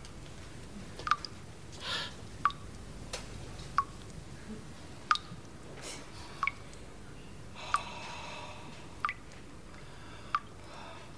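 Water dripping slowly and evenly, a single drop falling about every second and a quarter, eight drops in all. Twice a faint, brief rustle sounds between them.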